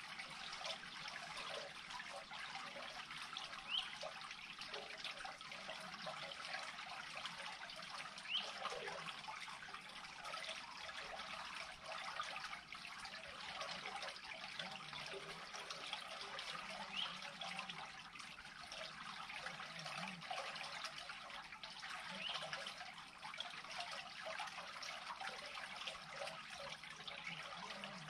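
Steady trickling and gurgling of water draining out of a beaver pond into an unclogged culvert, with a few brief louder blips standing out from the flow.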